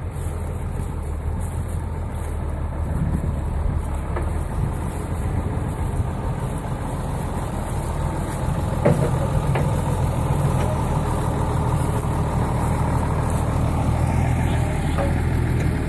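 County 1454 tractor's diesel engine running steadily, with a few sharp knocks over it, the loudest about nine seconds in.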